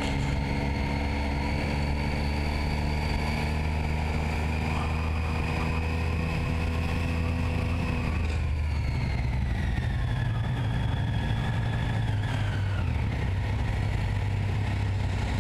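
Triumph Street Triple's 675 cc inline-three engine running steadily at low speed in town, with wind and road noise. About halfway through the engine note drops and a high whine falls in pitch as the throttle closes and the bike slows.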